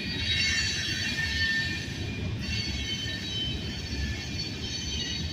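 Boxcars of a CSX freight train rolling past: a steady low rumble of wheels on rail, with several high-pitched wheel squeals held over it.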